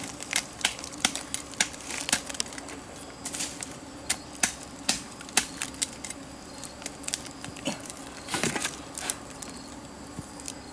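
A knife blade cutting and prying small bracket mushrooms off a tree trunk: a string of irregular sharp snaps and knocks, with a longer crackling stretch near the end.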